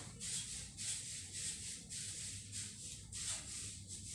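Fingers peeling the skin off a sweet potato: a run of short, soft rubbing rustles, about two or three a second.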